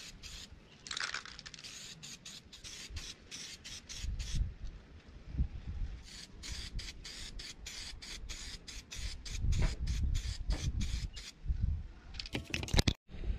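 Aerosol can of Diton Premium bronze spray paint hissing in many short, quick bursts as the colour coat is laid over a primed car wheel cover, with a few low handling knocks.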